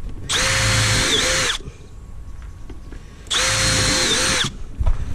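Cordless drill-driver driving screws into timber, running in two bursts of just over a second each, about two seconds apart. Its whine holds steady, then dips in pitch near the end of each run.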